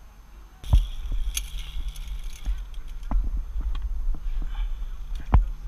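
Sharp knocks and clinks of metal zip-line hardware (trolley and carabiners on the cable) being handled over a steady low rumble: one knock about three quarters of a second in, others near three and five seconds.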